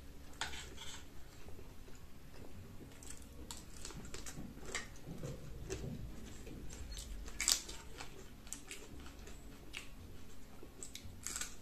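People chewing food, with scattered light clicks of cutlery against a plate; the sharpest click comes about seven and a half seconds in.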